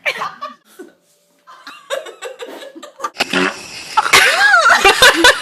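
A fart and laughter. From about three seconds in the sound is very loud and distorted, with pitch swooping up and down.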